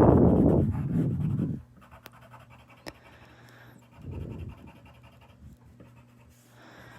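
Colouring strokes, a drawing tool rubbing and scratching over the picture. It is loudest for the first second and a half, with a shorter, softer run of strokes about four seconds in.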